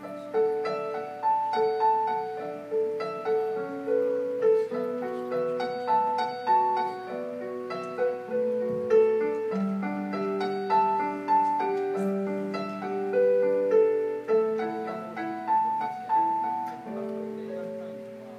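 A small Chinese traditional instrument ensemble of table zither, pipa and erhu plays a slow, lyrical melody, with plucked notes ringing and fading over sustained lines. The playing thins out and dies away near the end as the piece closes.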